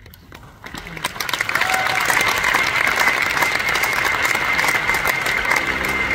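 Concert audience applauding, the clapping swelling over the first two seconds and then holding steady. A steady high tone sits over the applause, and low sustained music notes come in near the end.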